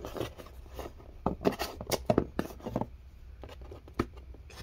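Scissors cutting through packing tape on a cardboard box: a run of short, sharp snips and scrapes, with one more sharp click near the end.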